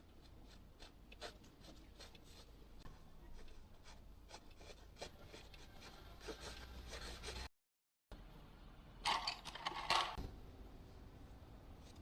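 A drawing tool scratching on paper in short, soft strokes. There is a brief cut to silence about seven and a half seconds in, followed a second later by a louder run of quick scratching.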